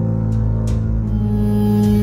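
Background music: a slow, dark ambient piece of sustained low drone tones.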